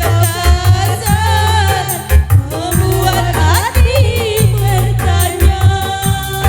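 Dangdut dance remix music: a heavy, pulsing bass beat and quick hi-hat-like ticks under a wavering lead melody, with a rising swoop a little past halfway.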